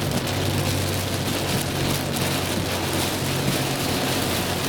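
Rain hitting a moving car, heard from inside the cabin over a steady low drone of road and engine noise.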